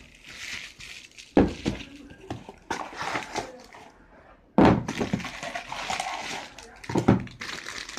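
Plastic wrap and cardboard packaging being handled and rustled, with sharp knocks about a second and a half in, at four and a half seconds (the loudest) and near seven seconds, as a cardboard box is lifted and set down.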